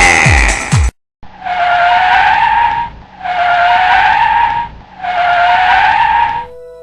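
Electronic dance music with a wobbling bass that cuts off about a second in, followed after a short gap by three identical screeching blasts, each about a second and a half long: hiss with a slightly rising tone inside it.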